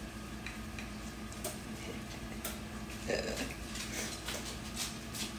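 A fork clinking and scraping on a ceramic plate while cutting into a portion of casserole: a few faint, scattered clicks and taps.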